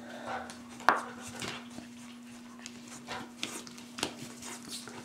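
Labrador retriever puppies playing with a plush toy: scattered soft scuffles and clicks of paws and claws on a hard floor, with a sharp click about a second in, over a faint steady hum.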